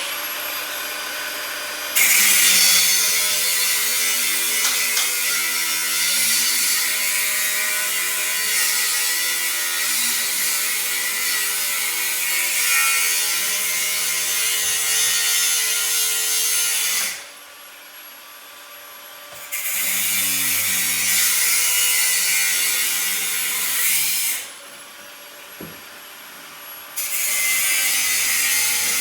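A power drill running in long stretches with a steady motor whine that shifts in pitch as the load changes, driving fasteners during garage door installation. It stops twice for a couple of seconds and then starts again.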